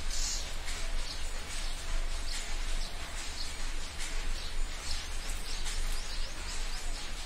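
Wet chewing and lip-smacking of a person eating rice and curry by hand, a quick irregular run of small mouth clicks, over a low steady hum.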